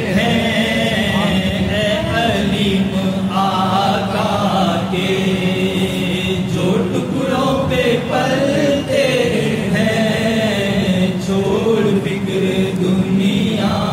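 A man singing an Urdu naat without instruments, drawing out long, wavering notes over a steady low hum.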